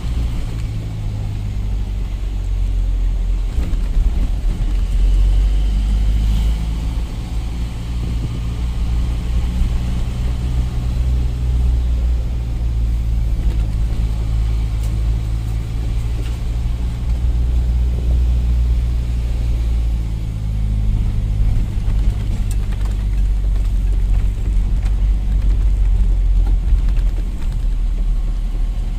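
Truck engine heard from inside the cab while driving, a deep steady drone whose pitch shifts a few times as the engine speed changes.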